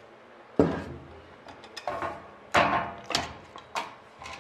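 Four sharp knocks and clacks as a wooden block is shifted on a workbench and a locking-pliers clamp is released from a thin aluminium aileron spar, the first about half a second in.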